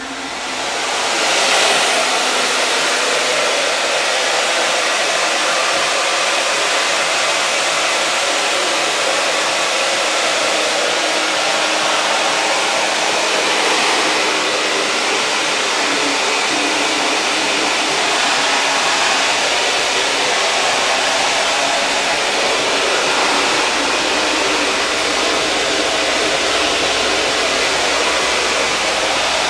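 Hand-held hair dryer with a diffuser attachment, its airflow building up over the first couple of seconds and then running steadily at full blow.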